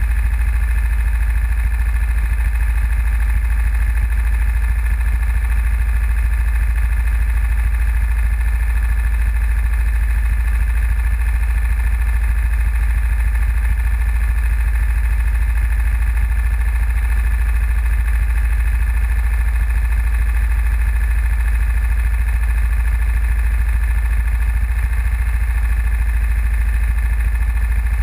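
Go-kart engines idling together while the karts sit stationary, a steady unchanging drone with a heavy low rumble, picked up by a camera mounted on one of the idling karts.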